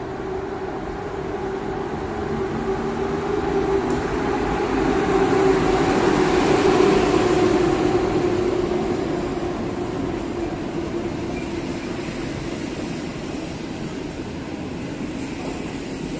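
Intercity passenger train, an electric locomotive hauling coaches, running past a platform in an underground station. A steady hum from the locomotive grows louder as it passes, about six to eight seconds in, then eases as the coaches roll by.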